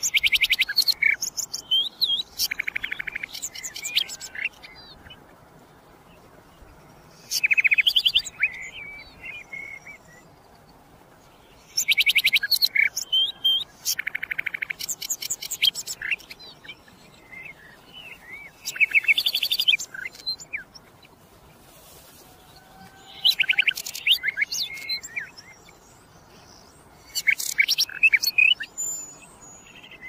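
Common nightingale singing: about six phrases of rapid, high repeated notes and trills, each one to four seconds long, with pauses of a few seconds between them.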